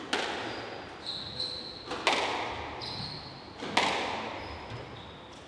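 Squash ball struck hard three times, about two seconds apart, each crack echoing around the enclosed court, with court shoes squeaking briefly on the wooden floor between the shots.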